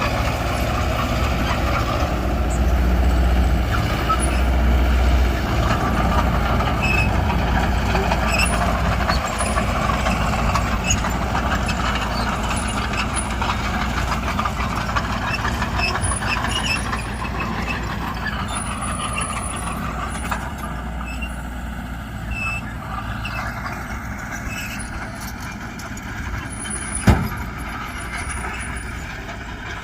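Diesel engines of a bulldozer and dump trucks running steadily. The sound is heaviest in the first few seconds and then gradually eases off, with a single sharp bang near the end.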